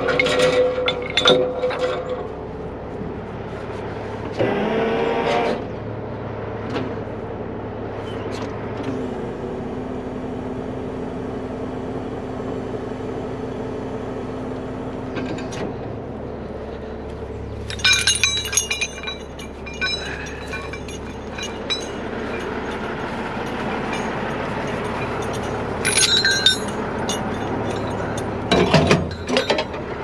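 Steel recovery chains, grab hooks and a snatch block clanking and clinking in several short clusters as they are handled and dropped, over the steady running of a heavy wrecker's diesel engine.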